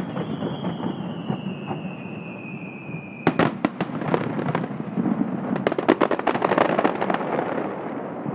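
Fireworks display: a whistling shell's tone falls slowly in pitch for about three seconds over the rumble of distant bursts, then a quick cluster of sharp bangs gives way to dense crackling pops.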